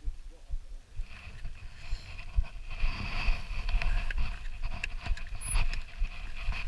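Mountain bike rolling down a rocky mountain path: tyres crunching over loose stones, with rattling knocks from the bike and a low wind rumble on the microphone. It grows louder after the first second or so as the bike picks up speed.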